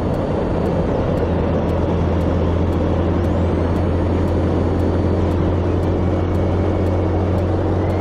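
Suzuki GN125's single-cylinder four-stroke engine running steadily at road speed, mixed with heavy, even wind rush on a helmet-mounted microphone.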